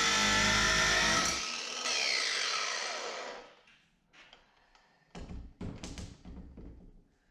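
Cordless angle grinder cutting through a steel bar, a loud steady whine for about a second. Once released, the disc winds down with a falling whine over a second or two, followed by a few short knocks as the tool and metal are put down.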